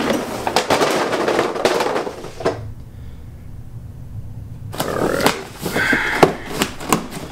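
Cardboard figure boxes and packaging being handled and moved, with rustling, scraping and sharp knocks, stopping for about two seconds midway before the handling resumes.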